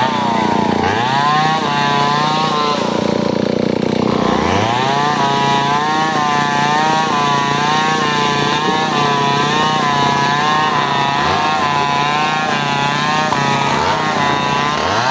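Chainsaw engine revved up sharply a few times, then held at high speed for about ten seconds with its pitch wavering up and down.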